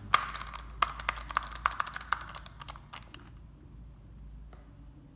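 Computer mouse buttons clicked rapidly, sharp loud clicks for about three seconds, as from a standard, non-silent mouse, then only faint soft ticks.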